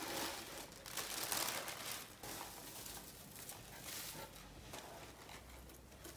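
Black wrapping paper rustling and crinkling as it is pulled open by hand, in irregular bursts, loudest about a second in.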